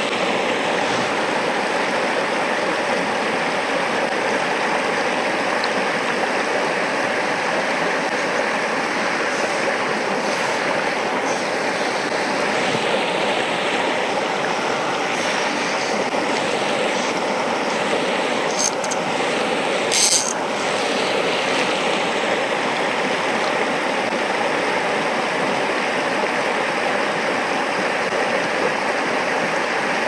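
Shallow mountain stream rushing steadily over stones and gravel riffles. Two brief, sharp high hissing sounds come about two-thirds of the way in, the second the louder.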